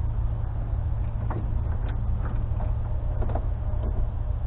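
Steady low rumble of wind buffeting the microphone, with a few faint clicks of charger wiring being handled at the battery.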